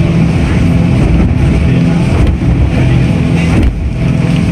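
Boat engine droning steadily, heard from inside the cabin, with a constant rushing noise over it.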